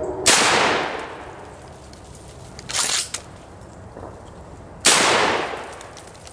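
Two shots from an old Ithaca 12-gauge shotgun, about four and a half seconds apart, each followed by a long echo dying away over a second or more. About three seconds in, between the shots, comes a short mechanical clatter ending in a click: the gun's action being cycled.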